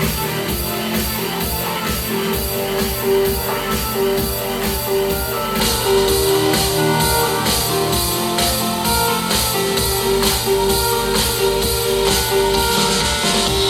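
Rock music with a steady drum beat and guitar, played through a JBL portable Bluetooth speaker.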